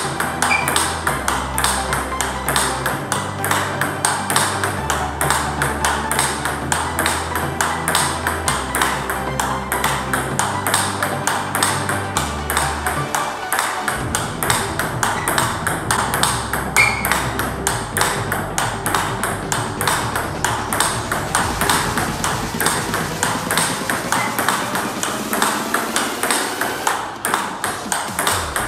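Table tennis ball clicking in a fast, even rhythm off rubber-faced bats and the table in a continuous forehand topspin rally, over electronic music with a stepping bass line.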